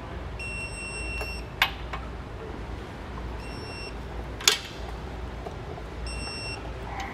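Digital torque wrench beeping three times, about every three seconds, each a short high steady beep, signalling that the set torque has been reached on the shock absorber bolts. Two sharp metallic clinks from the wrench and socket fall between the beeps.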